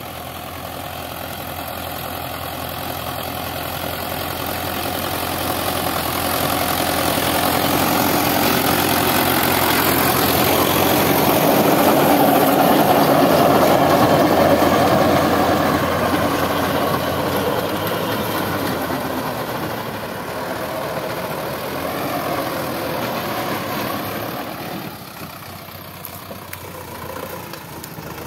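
Sonalika DI 750 tractor's diesel engine running under load while its rear rotavator churns through the soil. It grows louder toward the middle and then eases off.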